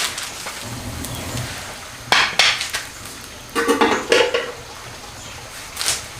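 Dishes and metal utensils clattering in several short bursts, loudest about two seconds in and again around four seconds in.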